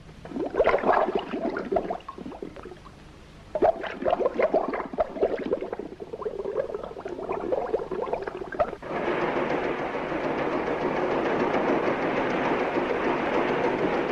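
Bubbling in irregular bursts from a scuba diver's exhaled air underwater. About nine seconds in, it cuts abruptly to a steady, louder machine noise.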